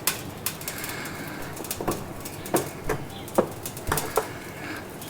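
A series of irregular sharp clicks and knocks, about eight in five seconds, some with a short falling ring after them.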